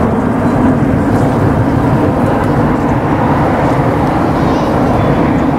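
Jet engines of a four-engine Boeing 747 freighter passing low overhead: loud, steady jet noise with a deep rumble.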